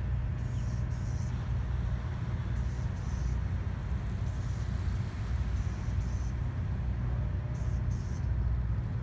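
A tugboat's engine runs as a steady low rumble. Faint, high, paired chirps recur about every two seconds over it.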